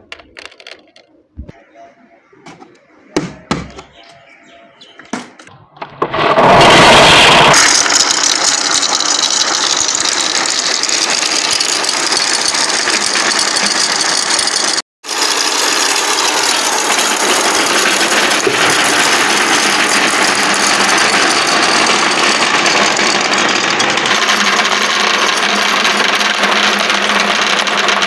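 Marbles clattering through a marble-run track. At first there are a few scattered clicks, then about six seconds in a dense, continuous rattle of hundreds of marbles rolling at once. The rattle breaks off for an instant near the middle.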